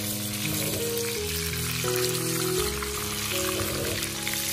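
Pork belly chunks sizzling steadily in bubbling fat in a wok as they are stir-fried, rendering out their fat. Soft background music with held notes plays underneath.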